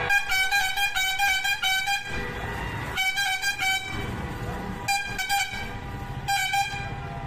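Lorry's multi-tone musical horn sounding a quick run of stepping notes in four bursts: one long, then three shorter. Under it is the low rumble of the lorry's engine.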